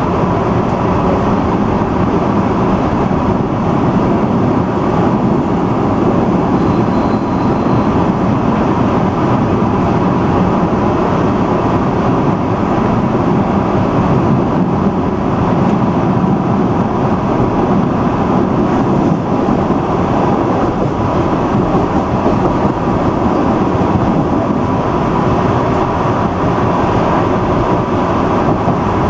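MBTA Red Line 01800-series subway car running on the rails, a steady rumble with a faint constant hum, heard from inside the front car.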